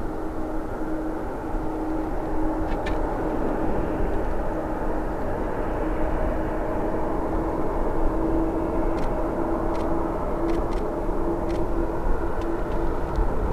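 Boeing 777-300ER's GE90 jet engines running steadily: an even rush of engine noise with a steady hum through it, and a few faint ticks.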